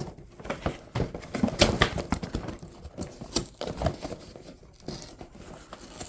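Hands handling and opening a LEGO set's cardboard box and packaging: irregular rustling, clicks and scrapes of cardboard and plastic, with sharper ticks scattered through.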